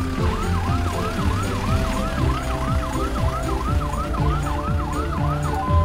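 Cartoon ambulance siren: a quick rising-and-falling wail that repeats about three times a second, over light background music.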